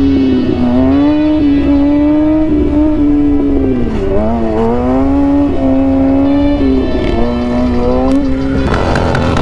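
Sportbike engine, a Kawasaki ZX-6R 636 inline-four, running at high revs under the rider, its pitch wavering and dipping briefly about four seconds in, with wind rumble underneath.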